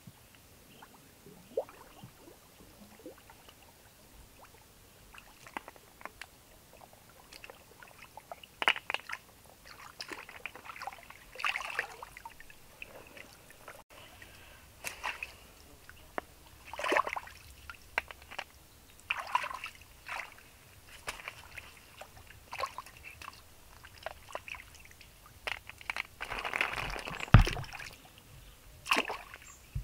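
Shallow water sloshing and splashing in irregular short bursts as someone wades and scoops snails out of it by hand. A longer, louder splash with a low thump comes near the end.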